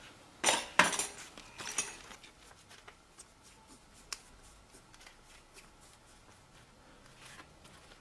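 Plastic clip-on rear mudguard being worked onto a bicycle seatpost by gloved hands: a few sharp scrapes and clicks in the first two seconds, then faint rubbing and occasional ticks.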